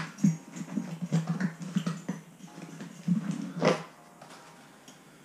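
A cardboard box opened by hand: the flaps pulled apart and a polystyrene foam packing piece worked out, rubbing and squeaking against the cardboard. A louder scrape comes about three-quarters of the way through, then it goes quieter.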